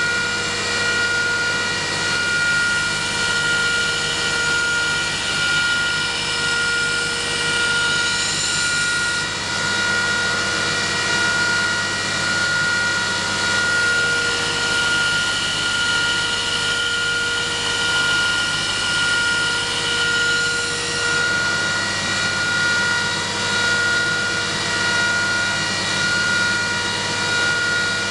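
Belt grinder with a 120 grit belt running steadily at full speed, its motor giving a steady whine over the hiss of the belt. In stretches partway through a higher grinding hiss comes in, the sound of a knife blade being ground against the belt to put on the secondary bevel.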